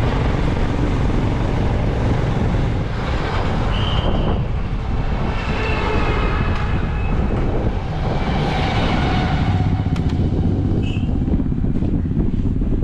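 Royal Enfield Himalayan's 411cc single-cylinder engine running steadily while the motorcycle is ridden, with road and wind noise. Two short high-pitched beeps sound about four seconds in and again near eleven seconds.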